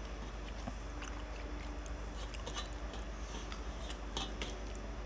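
Chewing and small wet clicks of people eating rice by hand, with fingers and food tapping on steel plates, over a faint steady hum.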